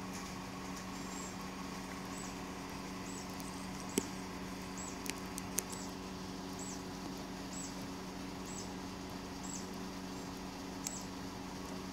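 A steady low machine hum, with faint short high chirps repeating about once a second and a few sharp clicks, the loudest about four and five and a half seconds in.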